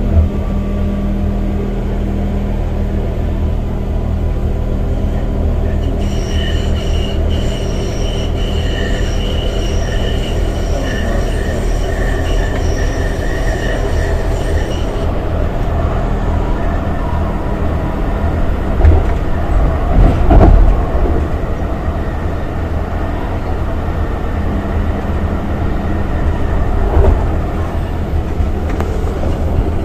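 Charleroi Metro tram running on its rails, heard from inside the cab: a steady low rumble with steel wheels squealing in several high steady tones from about six to fifteen seconds in. There are a few loud thumps around nineteen to twenty-one seconds in and one more near the end.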